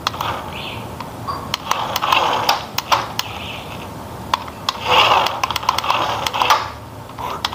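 Small electric motor and gearbox of a toy RC dump truck whirring in short runs as it drives back and forth across a wooden tabletop, loudest about five seconds in, with sharp clicks scattered throughout.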